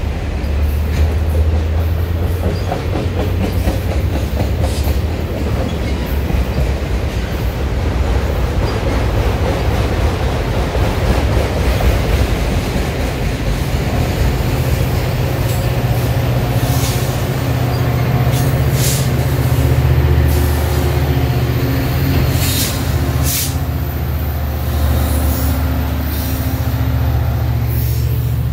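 Freight train of autorack cars rolling past: a steady rumble of steel wheels on rail with several sharp clicks. Thin squealing tones from the wheels come in during the second half.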